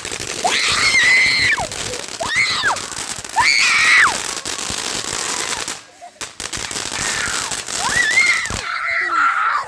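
Rover Ripper consumer firework going off with dense crackling and popping, with four high shrieks over it that rise and fall in pitch.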